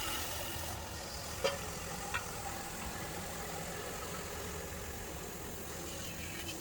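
An engine running steadily at idle, with two short knocks about a second and a half and two seconds in.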